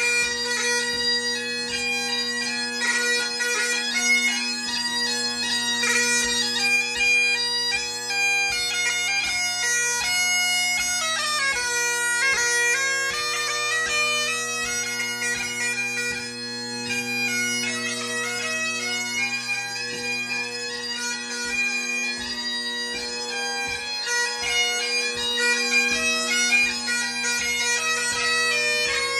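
Great Highland bagpipe played solo: steady drones sound throughout under a fast-moving chanter melody.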